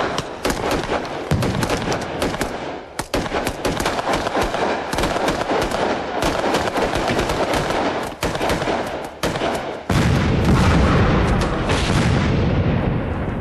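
Sustained battle gunfire: rapid, overlapping rifle and machine-gun shots. About ten seconds in, a louder, deep rumble joins the shooting, and the sound fades away at the end.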